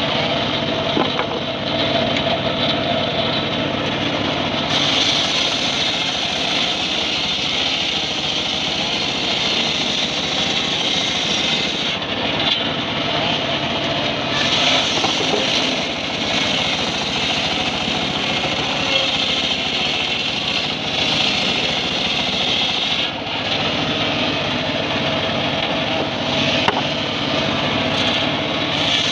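Homemade engine-driven circular sawmill running steadily, its large blade ripping lengthwise through a mahogany log. The cutting noise eases off briefly a few times between passes.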